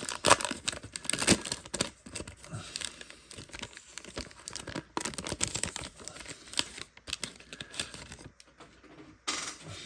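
Wax-paper wrapper of a trading-card wax pack being torn open and crinkled, in irregular sharp crackles that are loudest in the first couple of seconds, then fainter, with a short rustle near the end.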